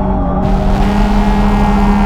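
Electronic background music in a drum-and-bass style, with the drums dropped out and a low sustained note held throughout.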